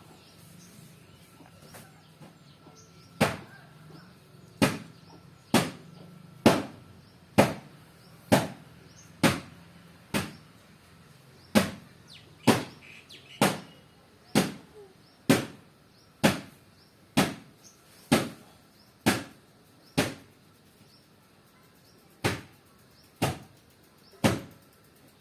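Sharp knocks or strikes repeating about once a second, some twenty in all, starting a few seconds in with a brief pause near the end.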